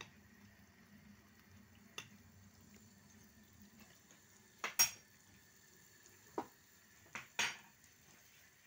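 Metal spoon clinking against a nonstick saucepan of boiling noodles: a handful of sharp knocks, the loudest a close pair about five seconds in.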